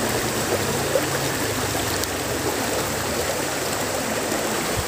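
Steady rush of running river water flowing along the bank.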